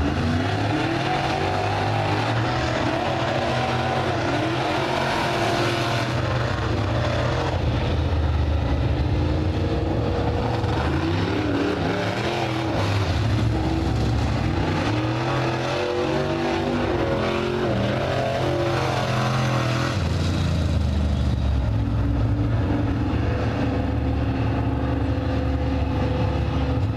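Dirt-track race cars with GM 602 crate small-block V8 engines running hot laps. The engine notes rise and fall over and over as the cars accelerate and lift around the track.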